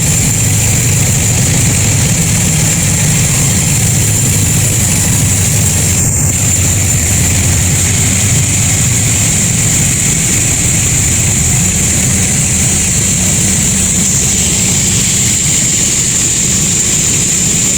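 Sawmill machinery running steadily, a low engine-like hum under a constant high-pitched whine.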